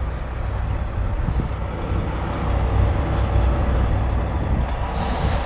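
Semi truck's diesel engine idling: a steady low rumble.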